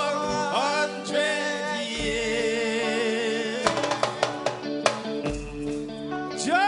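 Live reggae band music with hand drums, guitar and held, wavering sung voices.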